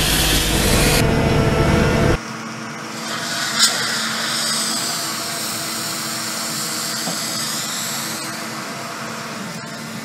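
The Great Elephant walking machine running: a steady mechanical rumble from its engine and hydraulics, with a hiss of water sprayed from its trunk. The sound drops abruptly to a quieter, thinner machine hum about two seconds in, with one sharp click a little later.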